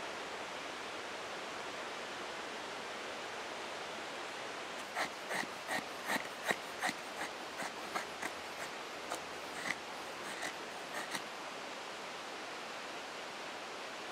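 Steady hiss of a rushing creek, and about five seconds in a run of about fifteen sharp, irregular knocks over some six seconds as a knife is knocked through wet wood to split kindling.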